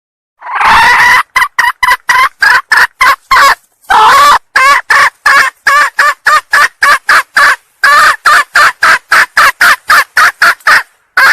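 Hen junglefowl calling loudly: a longer note, then a fast string of short clucks about three to four a second, with another longer note about four seconds in and a last one near the end after a short pause. It is the hen's call used as a lure to draw a male junglefowl.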